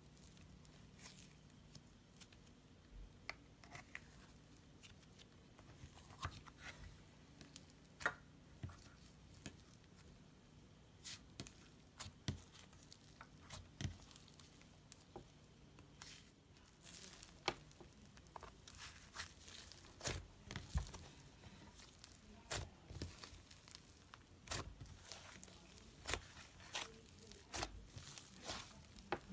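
Slime being worked by hand, giving scattered small pops and crackles that come thicker in the second half.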